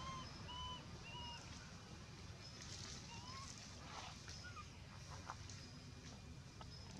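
Short animal calls: three brief, even-pitched calls in quick succession near the start, then a single upward-gliding call about three seconds in, with a few faint clicks and rustles.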